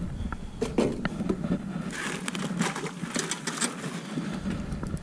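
Handling noise in an aluminium boat: scattered clicks, knocks and scrapes against the metal hull and gear, busiest in the middle.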